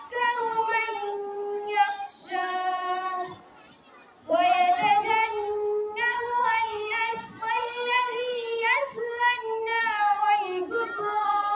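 A girl's voice reciting the Quran in the melodic qirat style: long drawn-out, held notes in sung phrases. She pauses for breath about three and a half seconds in, then begins the next phrase.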